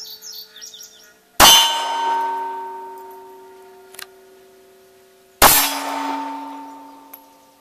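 Two 9mm handgun shots about four seconds apart, each followed by the ringing of a struck steel target plate that fades over a couple of seconds.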